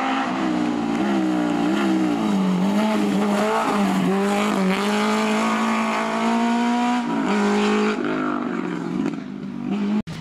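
Small hatchback rally car's engine revving hard on a hill climb, its pitch climbing and dropping again and again as the driver shifts and lifts for the bends. It fades over the last couple of seconds, then cuts off suddenly near the end.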